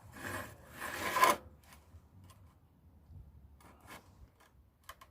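Hand file rasping across a hand-forged steel knife blade, taking off forge scale: two strokes in the first second and a half, the second louder, then a few faint scrapes and taps.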